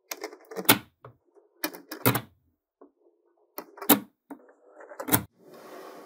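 Small metal magnetic balls clicking and snapping together as rings built from them are set in place, with a light rattle between about five sharp snaps. A softer, longer rustle follows near the end.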